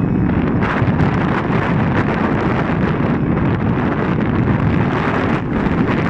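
Strong wind buffeting the microphone: a loud, continuous rumble that flares up in gusts.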